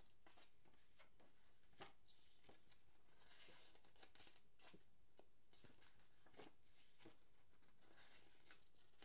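Near silence, with faint rustles and soft clicks of glossy booklet pages being handled and turned.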